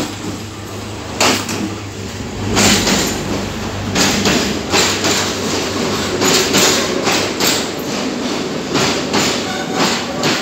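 Pulathisi intercity express passenger train arriving: a sharp knock about a second in, louder from about two and a half seconds as the train draws level, then the carriages roll past with a steady rumble and a quick run of wheel clatter over the rail joints.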